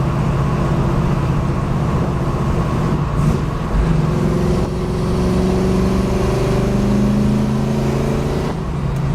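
1972 Camaro's rebuilt 350 small-block V8 with Flowmaster exhaust and coated headers, heard from inside the moving car. The engine pulls with its pitch climbing steadily. The pitch drops about three seconds in and again near the end, at gear changes in its 4-speed.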